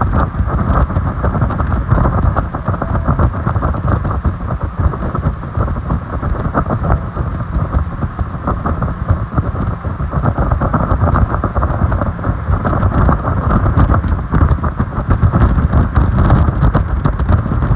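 Heavy wind buffeting the microphone on a speeding powerboat, a loud, steady, low rumble, mixed with the boat's engine and water rushing past the hull.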